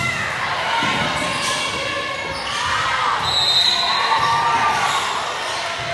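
Indoor volleyball play echoing in a gymnasium: the ball knocked about and hitting the floor, with players' calls and shouts. A short high tone sounds a little past three seconds in.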